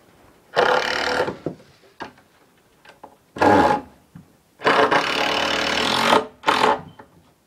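A power tool run in four short bursts, each holding a steady level for half a second to about a second and a half. The longest burst comes about halfway through.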